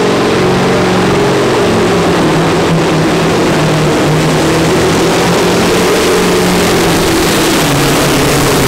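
Scania super sport pulling truck's diesel engine running flat out under full load as it drags a pulling sled, loud and steady at high revs, its pitch beginning to drop near the end.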